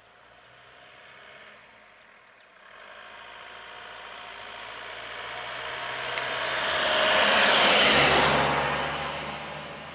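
Pickup truck driving past close by: its engine and tyre noise swell to a peak about eight seconds in, then fade as it moves away.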